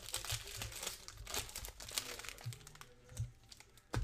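Foil trading-card pack wrappers crinkling as several packs are handled and shuffled, with one sharp knock near the end.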